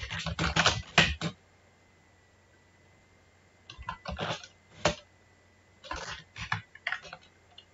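Typing on a computer keyboard in three short flurries of keystrokes: one at the start, one about four seconds in and one near the end, with a pause of about two seconds after the first.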